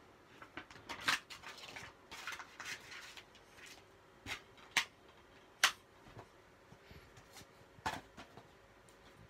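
Plastic DVD cases and paper inserts being handled: soft rustling with several separate sharp clicks and taps.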